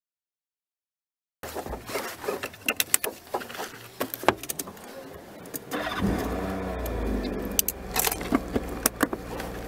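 Silence, then keys jangling and clicks inside a small car. About six seconds in the car's engine starts and settles into a steady idle, with a few more clicks over it.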